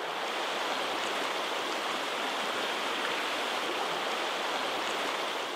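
Creek water running: a steady, even rush of current flowing over the stream bed.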